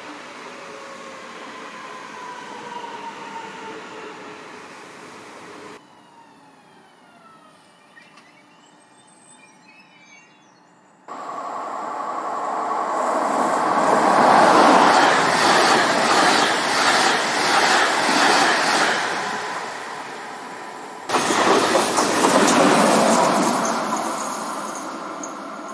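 Trains passing on an electrified main line, heard in several cut-together shots. First a train moving away with a whine falling in pitch. Then a quiet stretch. Then a train rushing past close by, loudest a few seconds after it starts. Near the end comes another loud passage that fades off.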